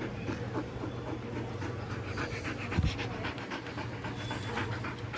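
A dog panting quickly and steadily right up against the microphone, with one short thump a little past halfway.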